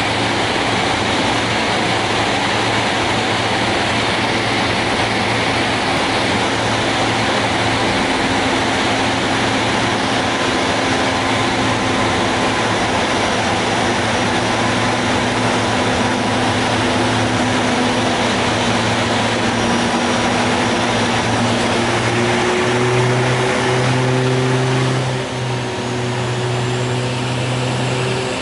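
Cockpit noise of a de Havilland Canada DHC-6 Twin Otter's two PT6A turboprop engines and propellers on approach: a loud, steady drone with rushing air. A little past two-thirds of the way in, the low propeller hum steps up and a new steady tone joins it. A few seconds later the engine note dips briefly.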